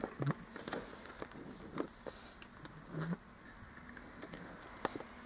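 Scattered light clicks and taps of a plastic toy being handled and turned over, with a few soft thumps, one right at the start and one about three seconds in.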